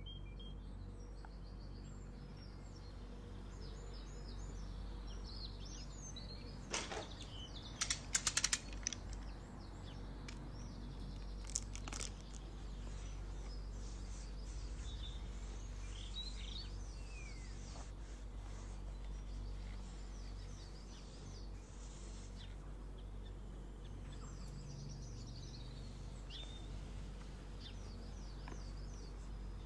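Small birds chirping in the background over a steady low hum, with a few sharp clicks about seven seconds in, a quick cluster just after, and one more about twelve seconds in.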